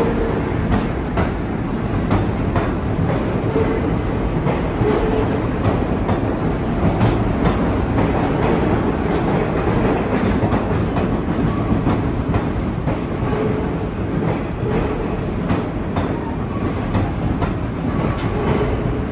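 New York City subway train running on the track: a steady rumble with irregular clicks of the wheels over rail joints, and now and then a brief faint squeal.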